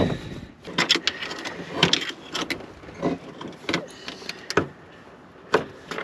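A fuel line fitting being twisted and tugged out of its grommet in the top of a diesel tank: irregular clicks, knocks and rubbing, several a second.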